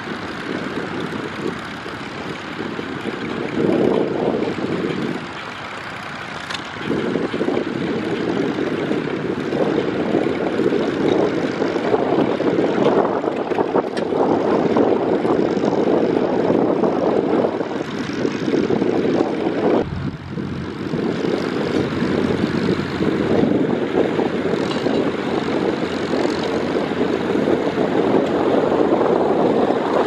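Vintage Farmall tractor engine running with a steady drone, easing off briefly about five seconds in and again around twenty seconds.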